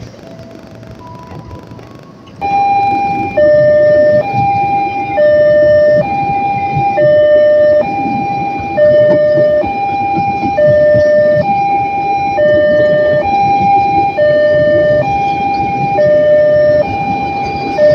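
Two-tone hi-lo siren, a higher and a lower note swapping back and forth about once a second, starting suddenly about two seconds in and loud over a low rumble.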